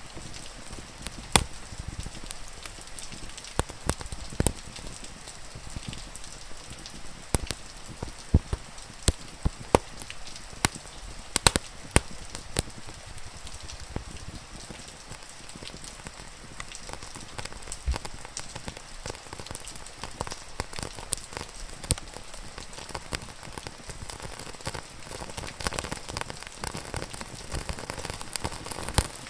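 Steady rain falling, with a wood fire crackling and popping: sharp irregular pops over an even hiss, a cluster of louder pops about a third of the way in.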